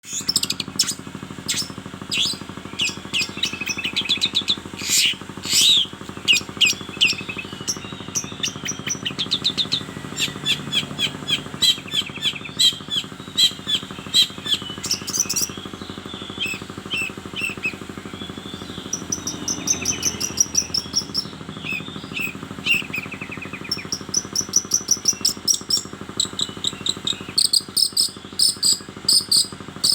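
A long-tailed shrike (cendet) sings a varied, chattering song of rapid chirps and trills, with a few longer whistled phrases in the middle and later on. The song is a mimicking one that the title likens to a cat.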